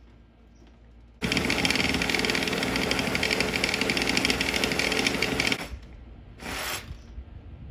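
Yellow handheld cordless power tool run hard for about four seconds, starting about a second in, with a dense rapid rattle, as it fastens a temporary brace board to a wooden deck post.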